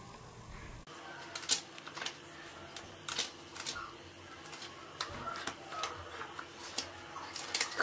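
Pages of a paperback book being turned and handled, an irregular run of sharp papery flicks and rustles.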